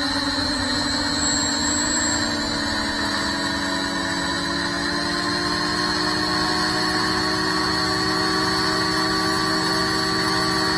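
GEPRC CineLog 35 cinewhoop's brushless motors spinning at idle while the drone sits armed on the floor, a steady whine with several even tones and a high-pitched edge, heard close up from the camera on the drone.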